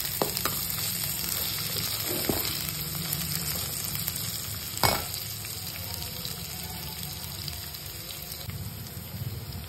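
Chopped onions, carrots and green chillies sizzling in hot oil in a pan while being stirred, with a few small clicks and one sharp clack about halfway through.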